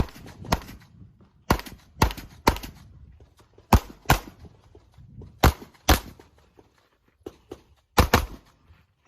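Handgun shots fired in quick pairs, about ten cracks spread across several seconds, with short pauses between the pairs.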